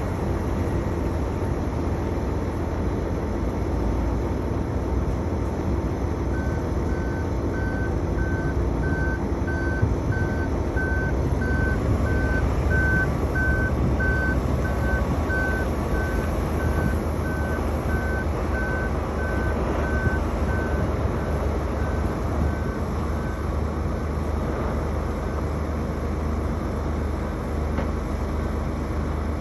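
Heavy diesel earthmoving plant running with a steady low rumble. Several seconds in, a reversing alarm starts beeping at a single pitch, a little faster than once a second, for about fifteen seconds, growing louder and then fading away.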